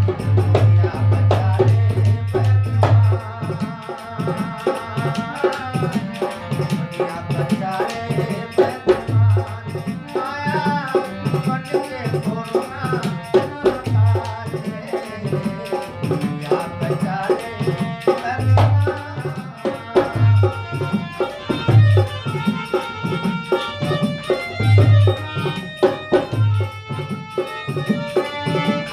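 Harmonium playing a bhajan melody, accompanied by the regular deep bass strokes of a hand drum.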